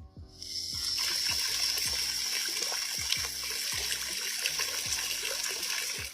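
Steady rush of water, starting about half a second in and stopping just before the end.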